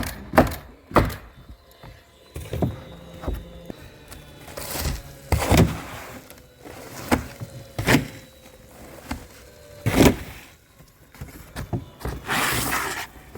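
Shingle roofing work: a string of about a dozen sharp, irregularly spaced knocks as shingles are set and fastened, with brief rustling between them.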